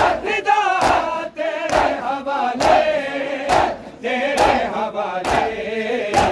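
A Shia noha lament chanted by a group of male voices, with mourners beating their chests (matam) in time: a heavy, regular slap about once a second under the singing.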